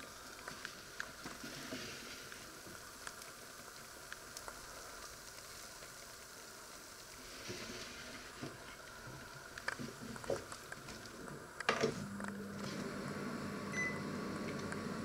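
Scattered light clicks and clatter of handling, then a sharp clunk like a door shutting near the end, after which a Panasonic inverter microwave oven runs with a steady hum and gives a short beep from its keypad.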